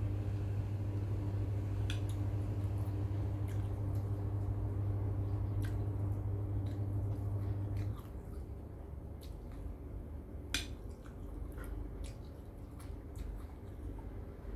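Metal spoon clicking against a bowl and mouth sounds of chewing a spicy salad, with scattered sharp clicks, the loudest about ten seconds in. A steady low hum runs underneath and cuts off suddenly about eight seconds in.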